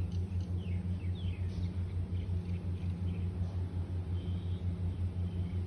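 Motorcycle engine idling, a steady low hum with an even pulse of about six beats a second. Birds chirp faintly in the first couple of seconds.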